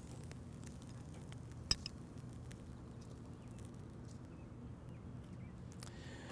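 Metal tongs working grilled asparagus off the wire mesh of a tabletop charcoal grill: quiet handling with one sharp click about two seconds in, and a few faint ticks, over a steady low hum.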